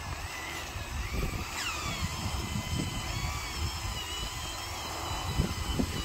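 Small electric drive motors of a radio-controlled bulldozer and dump truck whining, the pitch sliding up and down as the motors change speed while the bulldozer pushes the truck through mud. Low uneven thumps sound underneath.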